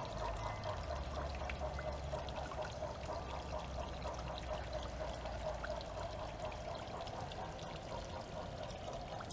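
Water pouring and splashing steadily in a continuous trickling flow, with a low hum underneath.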